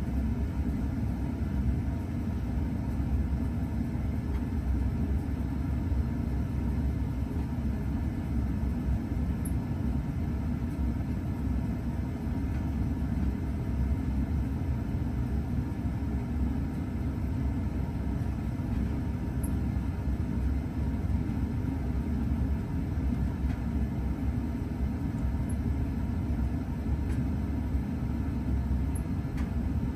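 52-inch Hampton Bay Quick Connect ceiling fan running, its blades moving air in a steady low rush that stays even throughout.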